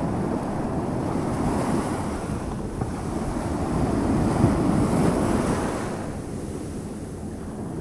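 Sea waves washing up the beach, swelling about halfway through and then easing off, with wind buffeting the microphone.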